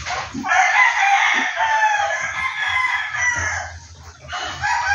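A rooster crowing: one long crow starting about half a second in and lasting about three seconds, then another crow beginning near the end.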